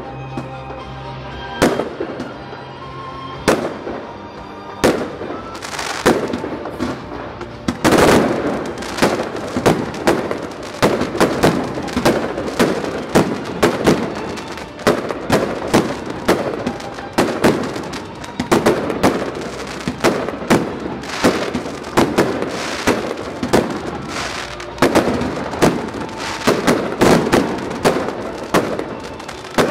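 Fireworks display: a rapid string of aerial shell bursts and crackle. From about eight seconds in the bangs come several a second, nearly without a break.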